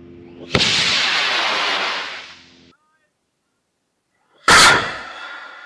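Model rocket motor igniting and lifting off: a sudden loud rush of motor noise about half a second in, fading away over about two seconds as the rocket climbs. A second sharp, loud blast with a ringing tail comes about four and a half seconds in.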